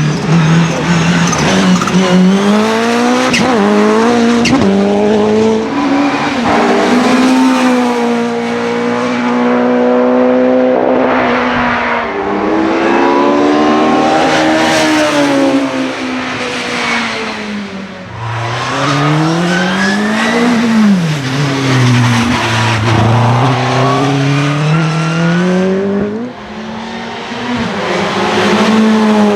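Racing car engine driven hard on a hillclimb run, its pitch climbing through the revs and dropping at gear changes and lifts, over and over, with a deep drop and sharp rise in the middle.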